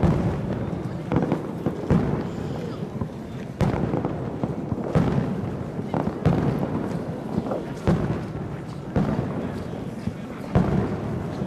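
Fireworks display: aerial shells bursting in a string of sharp bangs, roughly one a second, with a low rumble between them.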